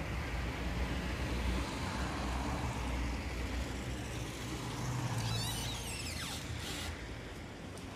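Town-street traffic: a steady rumble of passing cars, with a high squeal falling in pitch about five seconds in.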